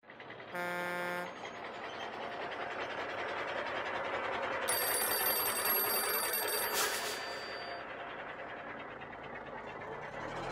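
Animated outro sound effects. A short pitched tone sounds near the start, then a steady rushing noise builds and fades, and an old-style telephone bell rings for about two seconds in the middle, ending in a sharp stroke.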